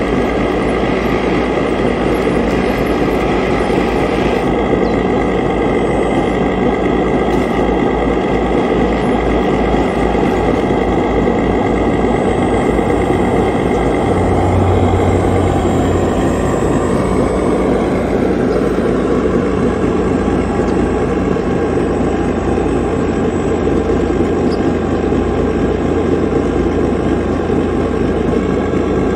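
Radio-controlled hydraulic excavator running with a steady engine-like drone as it slews and folds its boom down onto the trailer. The low hum swells for a couple of seconds about halfway through.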